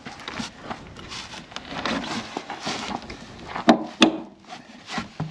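A wooden log scraping and grinding against the edge of a Land Rover Discovery's aluminium rear fender as it is levered to bend the folded-back lip out, with two sharp knocks about three and a half and four seconds in.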